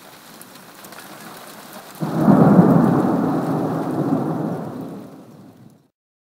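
Steady rain, then about two seconds in a sudden loud clap of thunder from a close lightning strike. It rumbles and fades for a few seconds, then cuts off suddenly.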